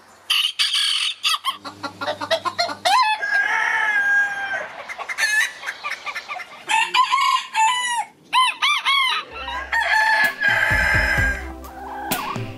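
Bantam chickens calling: rapid short clucks, with a rooster crowing about three seconds in and again near ten seconds. Music with a low beat comes in about nine seconds in.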